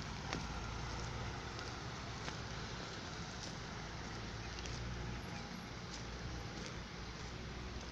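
Low rumble of road vehicles crossing the overbridge, with a few faint clicks.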